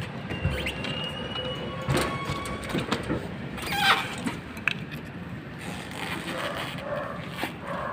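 A metal door with an electronic keypad lock being handled and opened: several clicks and knocks, a steady high electronic tone lasting about a second, and a short rising squeal a little before the middle.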